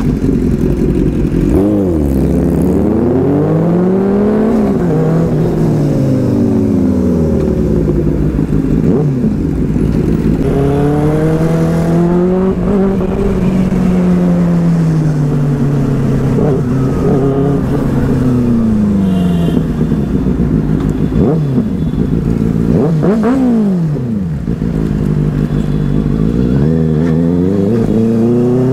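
Inline-four sport motorcycle engine under way, its revs climbing and dropping again and again as the rider works the throttle and shifts gears, with one sharp dip and climb a little after the middle.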